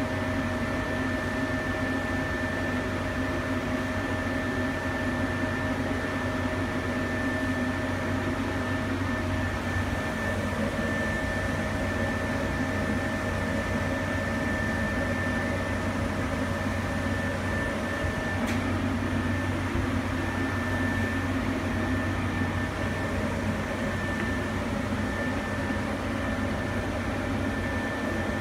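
Hansweld HSD-12KW high-frequency welding machine running a weld cycle on a PVC conveyor belt, giving a steady electrical hum with a thin high whine over it. There is a faint click about two-thirds of the way through.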